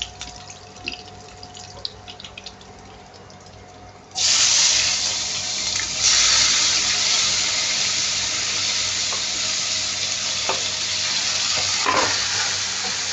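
Chopped tomatoes going into hot oil with browned garlic and green chili: a faint crackle of frying, then about four seconds in a loud sizzle starts suddenly and keeps on, growing louder again a couple of seconds later. A few knocks of the stirring spoon on the pan come near the end.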